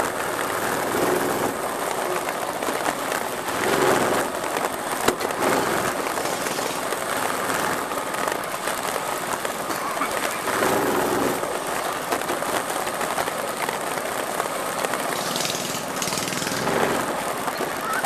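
Predator-powered minibike engine, a small single-cylinder four-stroke, running at speed on a woodland dirt trail, its pitch rising and falling with the throttle several times. There is a sharp knock about five seconds in.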